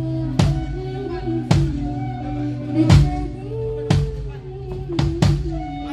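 A band playing during a sound check: a drum beat hitting roughly once a second over a held bass line and sustained melody notes that shift in pitch.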